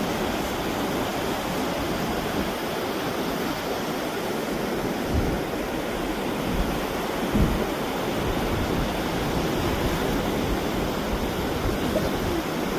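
Steady rush of surf washing in, with gusts of wind buffeting the microphone.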